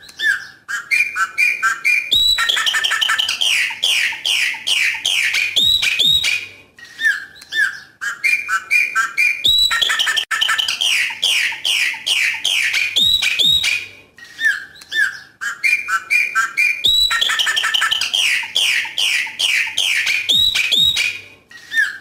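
Chopi blackbird (pássaro preto) singing its 'coqui coqui' song: a few short clear notes followed by a fast run of loud ringing notes. The whole phrase comes three times, about every seven and a half seconds.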